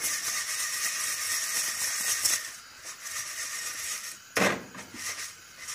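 Unpopped popcorn kernels rattling in a stainless steel saucepan shaken over a gas burner, dense for the first two seconds or so and then softer. A sharp knock about four and a half seconds in, likely the pan against the stove grate.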